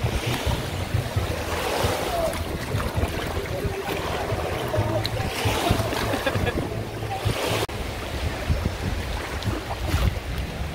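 Small waves washing in and out over the sand at the water's edge, swelling twice, with wind buffeting the microphone as a low rumble.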